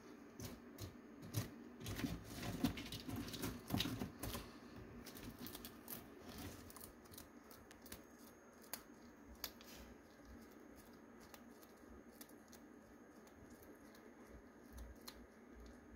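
Central bearded dragon biting and chewing a locust: a faint run of small, sharp crunching clicks, densest a couple of seconds in, then thinning out to scattered clicks.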